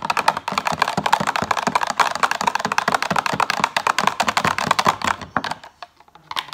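Wire whisk beating fast against the inside of a glass measuring cup of liquid, a rapid run of clicks and taps that stops about five and a half seconds in.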